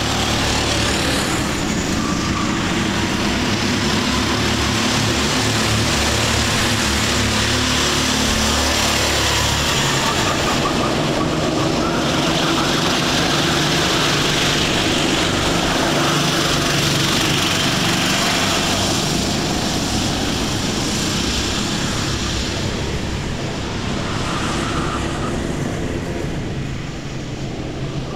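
Engines of several rental go-karts running on the track, a steady engine buzz with pitches shifting as karts brake and accelerate through the corners. A deep low note drops out about a third of the way through, a louder group of karts passes around the middle, and the sound eases off near the end.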